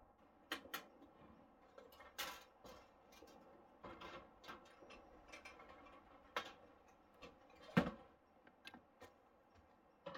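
Scattered clicks, knocks and clatters of camp cooking gear being handled as a two-burner camp stove and a frying pan are set out on a car's tailgate. The loudest knock comes near eight seconds in.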